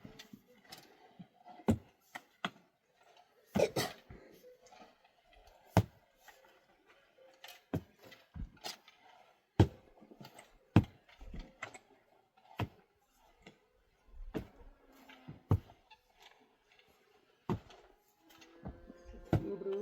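Irregular sharp knocks and thuds, about one every second or two, some louder than others, with faint scraping between them.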